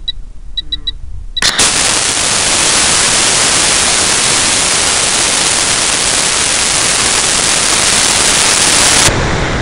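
Heard from a camera riding on a high-power rocket: a few short electronic beeps, then about one and a half seconds in the Cesaroni H226 Skidmark motor lights with a sudden loud rush. The noise continues steady as the rocket climbs, with air rushing past the airframe, and eases off about nine seconds in.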